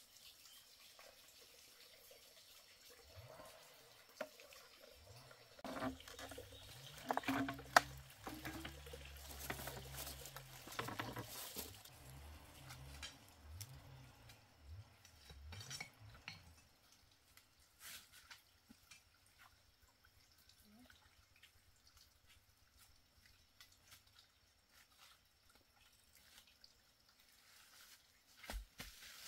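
Water dripping and trickling, faint, with scattered knocks and clatter of handling that are busiest between about six and seventeen seconds in.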